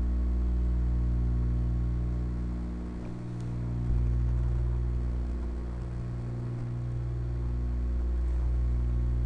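Steady low electrical hum of several held tones, dipping slightly and swelling again about four seconds in.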